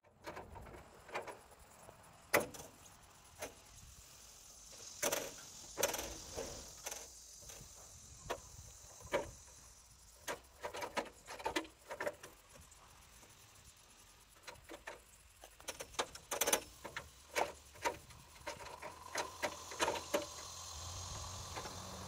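Irregular metallic clinks, clicks and knocks of hand work on a bandsaw sawmill's blade-wheel housing, with parts and tools being handled on the blade assembly.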